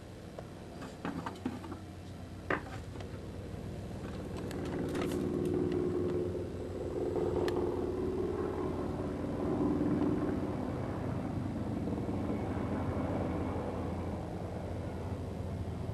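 Helicopter flying overhead: a steady rumbling drone that grows louder for several seconds, holds, then eases off slightly. A few sharp clicks in the first couple of seconds.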